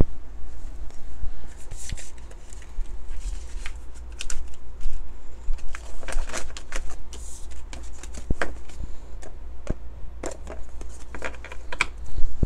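A deck of large oracle cards being gathered up off a wooden table and shuffled by hand: irregular taps, slides and flicks of card against card and on the tabletop.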